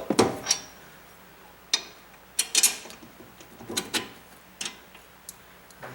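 Hand tools and steel suspension parts clanking and clicking while a new upper control arm is fitted to the ball joint. About half a dozen short, sharp knocks come at irregular intervals.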